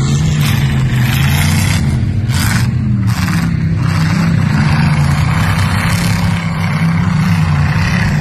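V8 race car engines running hard on a dirt track, the engine note dropping and climbing again a couple of times as the drivers lift off and get back on the throttle. A few short hissy surges come in during the first few seconds.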